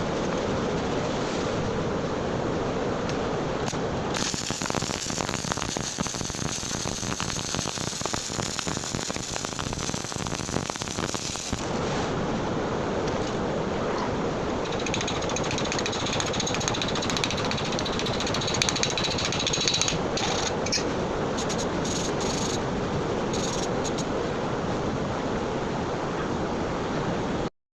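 Electric arc welding on steel rebar: a steady crackling arc, with a denser run of sharp crackles from about four to twelve seconds in, cutting off abruptly near the end.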